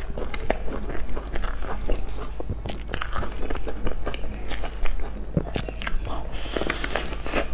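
Close-up mouth sounds of someone eating crumb-topped cream puffs: many small crackly crunches and clicks of chewing. A denser crunch comes about six seconds in as she bites into a fresh puff.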